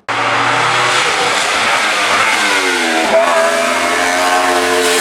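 Racing car engine at full throttle on a hillclimb, pitch climbing steadily, then dropping sharply on an upshift about three seconds in and climbing again. It starts abruptly at full volume.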